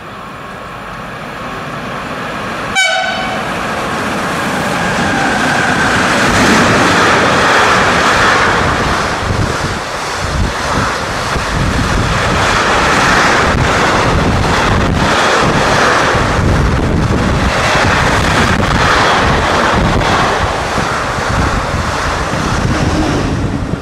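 Intermodal freight train hauled by class 189 electric locomotives passing at speed. A short horn blast sounds about three seconds in, then a loud rush of wheels and wagons with rapid clatter over the rail joints, dropping away near the end.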